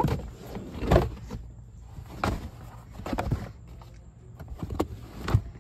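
Molded rubber floor mat being worked into a car's front footwell: a series of irregular thumps, scrapes and rubbing as the stiff mat flexes and knocks against the floor and interior trim.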